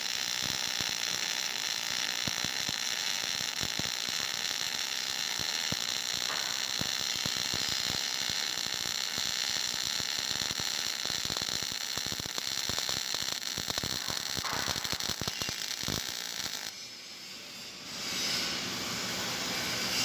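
MIG welding arc on a vertical-down (3F) fillet weld in steel, a steady crackle of rapid clicks from the arc and spatter. The arc stops about three-quarters of the way through, and a quieter, even noise follows.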